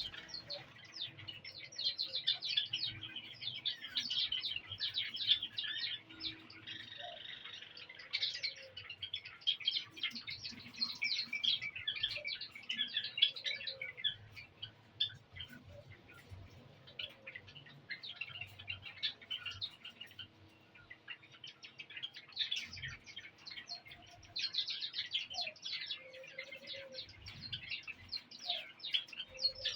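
A flock of caged Java sparrows chirping, many short high chirps overlapping in busy bursts, with brief lulls about halfway through and again a little later.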